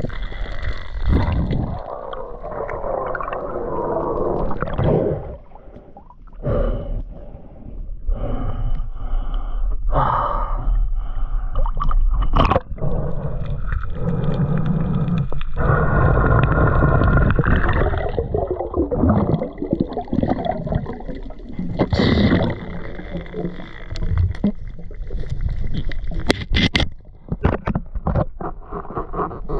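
Muffled underwater sound through a submerged camera: water movement, gurgling and bubbles, with some wavering whine-like tones. There are a few sharp clicks or knocks near the end.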